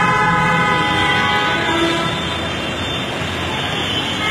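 Road traffic noise with a vehicle horn sounding steadily for the first second or so.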